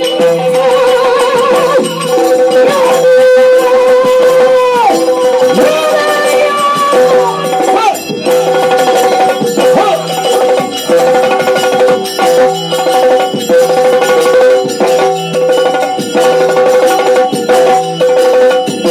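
Yakshagana battle music: the chande drum and hand cymbals strike a driving rhythm over a steady drone, with gliding pitched lines in the first several seconds.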